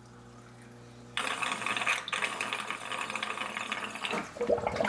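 Aquarium return line's siphon break gurgling and sputtering as air is sucked into the line and the water in it drains back down to the sump, with the return pump shut off. It starts suddenly about a second in and lasts about three seconds.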